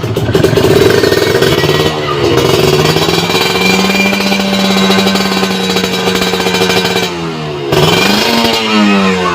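Kawasaki Ninja RR's two-stroke single-cylinder engine revving through a WRS aftermarket exhaust. The revs climb and are held high and steady for a few seconds. The throttle drops off about seven seconds in, and the engine is revved up again near the end.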